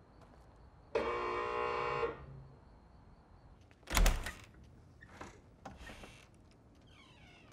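An electric doorbell buzzer sounds once for about a second. About three seconds later comes a loud thud, then a few lighter knocks and a short creak as a door opens a crack.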